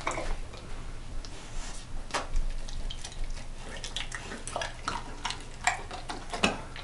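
Scattered light clicks and scrapes of a metal fork on a dinner plate as pieces of steak are picked up, mixed with a dog's mouth clacking as it takes the meat off the fork.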